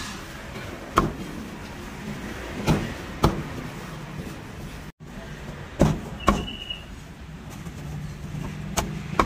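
Meat cleaver chopping roast duck on a thick wooden chopping block: about six sharp chops, irregularly spaced, over a steady hum of street traffic.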